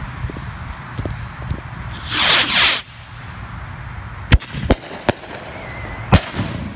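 Consumer skyrockets launching and bursting. A loud hissing whoosh that falls in pitch comes about two seconds in, then four sharp bangs follow over the next two seconds.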